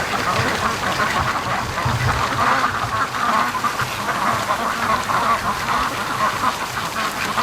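A flock of domestic ducks, mostly white Pekins, quacking continuously in an overlapping chorus as they hurry home, with gusty wind rumbling on the microphone near the start and about two seconds in.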